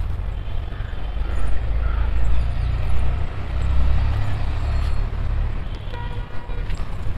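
Low rumbling noise, strongest about three to four seconds in, with a few faint high tones near the end.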